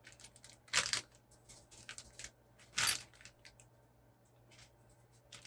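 Scattered light clicks and taps of small RC kit parts and their packets being handled, with two sharper clicks about a second in and near three seconds.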